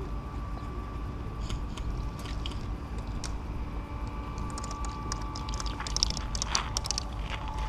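Steady low hum with scattered sharp clicks and taps, thickest about six seconds in.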